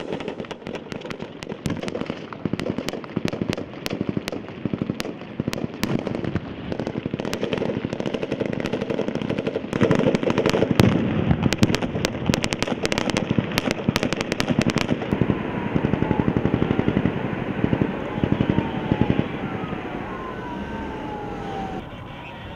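Rapid rifle gunfire in bursts and single shots, heaviest about halfway through, then thinning out. Near the end the shooting eases and falling siren wails come in.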